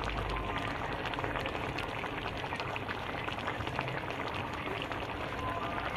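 Rohu fish curry boiling in an iron kadai, the gravy bubbling steadily with a dense crackle of popping bubbles.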